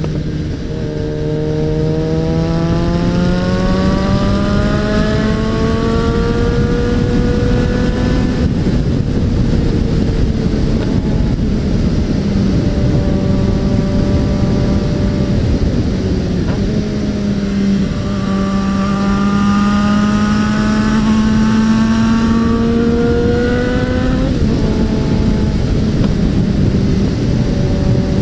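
Suzuki Bandit 650N's inline-four engine under way, its pitch climbing slowly as it accelerates, holding steady, then climbing again before dropping sharply about three-quarters through as the throttle is shut or a gear is changed. Steady wind and road noise run underneath.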